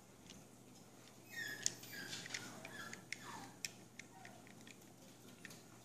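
A basenji puppy giving short high squeaks and whimpers, one sliding down in pitch, for a couple of seconds. Light clicks and taps are scattered through, from its claws on the hardwood floor and its paws on the plastic Lego truck.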